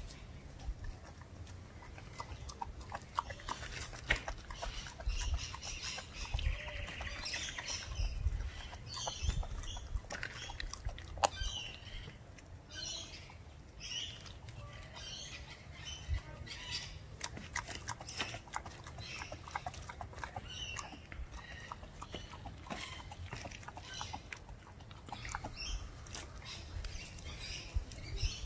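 German shepherd puppy chewing and gnawing a raw chicken leg quarter, with irregular crunches and clicks as it bites into the meat and bone.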